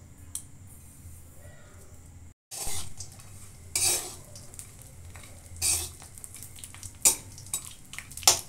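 Metal spatula scraping and stirring chopped cashews and raisins frying in a little ghee in an aluminium kadai, with a light sizzle. About five separate scrapes, the loudest near the end.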